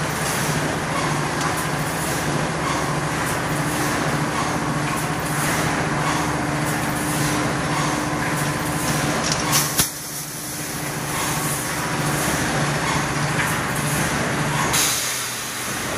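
Automatic fence mesh panel welding machine, a pneumatic electric resistance welder, running: a continuous mechanical din with a low hum that pulses at a regular rhythm. A single sharp burst of noise comes about ten seconds in.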